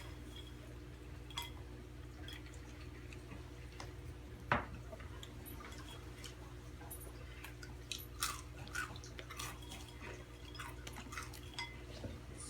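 Scattered crunches and small clicks of someone eating Takis rolled tortilla chips from a bowl, with one sharper click about four and a half seconds in and a busier patch near two-thirds of the way through. A steady low hum runs underneath.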